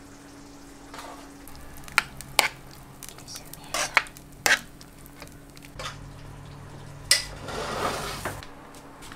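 A metal spoon stirring tomato sauce in a frying pan, with several sharp clinks of spoon against pan a second or so apart and a short scrape near the end.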